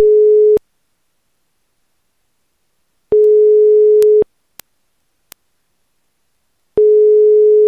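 Telephone ringing tone heard on the caller's line: a single steady tone of about a second, repeated three times with pauses of about two and a half seconds, a few faint clicks in between. It is the sign that the dialled phone is ringing and not yet answered.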